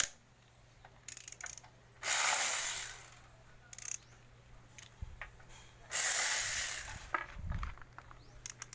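A ratchet clicking in two fast runs of about a second each, about two and six seconds in, with scattered short metallic clicks and clinks between them.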